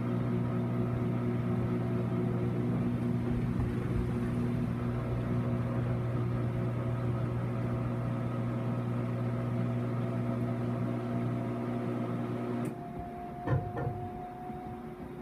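Whirlpool Cabrio high-efficiency washer running with a steady electric hum made of several pitched tones. The hum cuts off suddenly near the end, leaving a faint thin whistle and two quick clicks.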